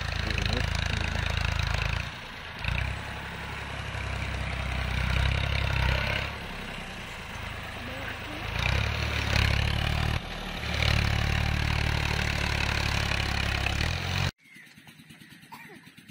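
Diesel engine of an Al-Ghazi 65 hp tractor running hard under load while pulling a disc harrow through soft ground. It revs up and down, dips briefly about two seconds in and again near ten seconds, and cuts off abruptly a couple of seconds before the end, leaving a much quieter background.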